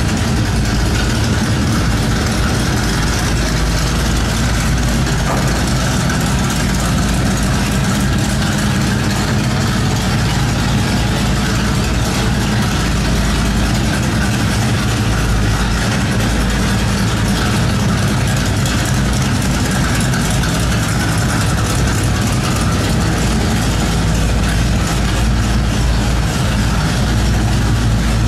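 1967 Chevrolet Chevelle SS's V8 engine idling steadily, a low, even rumble that holds without revving.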